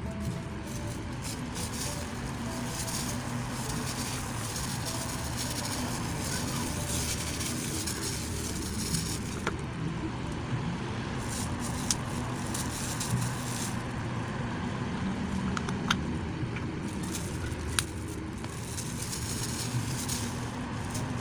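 Steady low rumble of background noise, with a few sharp clicks in the second half.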